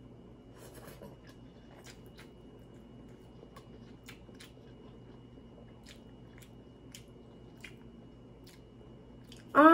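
A person chewing a mouthful of instant ramen noodles: soft, scattered wet mouth clicks and smacks. Right at the end comes a short, much louder voiced reaction that rises in pitch and then holds.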